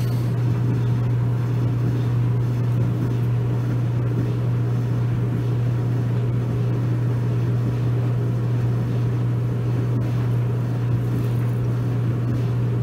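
Maytag clothes dryer running mid-cycle on a sensor dry: a steady, even hum from the motor and drum with no change in pitch or level.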